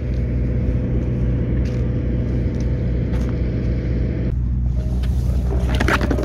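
Construction machinery's engine running steadily: a low, even drone with a faint steady hum above it.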